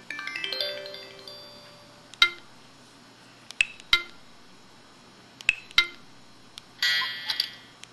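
Samsung SPH-X7800 mobile phone playing its built-in effect sounds through its small speaker: a quick descending chime melody fading out in the first second, then short glassy pings, one and then two pairs, and a buzzy electronic tone near the end.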